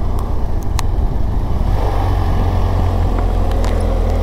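BMW motorcycle engine running steadily under way, a constant low drone with rushing wind and road noise over it.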